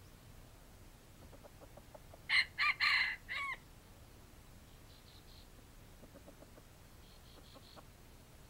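Red junglefowl rooster crowing once about two seconds in: a short crow of four quick notes, the last one falling away. Faint high chirps come twice later.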